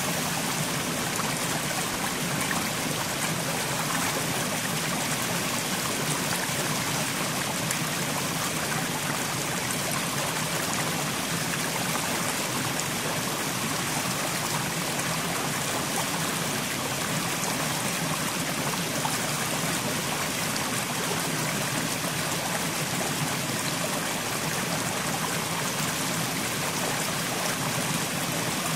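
Mountain stream flowing over rocks: steady rushing and trickling water, even throughout.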